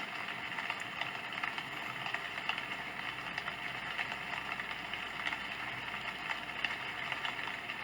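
Sound Oasis ambient sound machine playing a steady, even hiss of noise, centred in the upper middle range, with faint scattered ticks through it.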